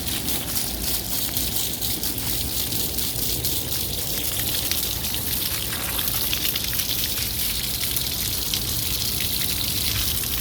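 Water spraying steadily onto a Ryobi RM480e electric lawn mower as it is washed, a continuous splashing hiss.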